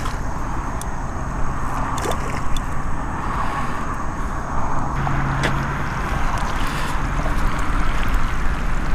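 Shallow creek water sloshing and trickling, with scattered small splashes and clicks, as a hooked carp is worked in close.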